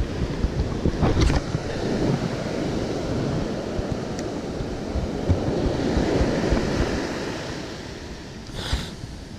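Pacific surf breaking and washing up a sandy beach, with wind buffeting the microphone.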